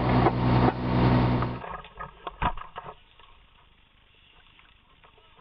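A loud, steady engine hum from fire apparatus running at the scene. It cuts off abruptly about a second and a half in. After that there are only a couple of faint knocks and handling rustle close to the microphone.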